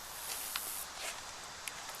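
Faint rustling of a person moving, with a few light clicks scattered through it.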